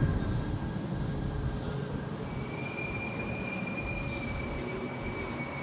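Train moving along the track with a steady rumble, its wheels squealing on the rails: a thin, high, steady squeal sets in about two seconds in.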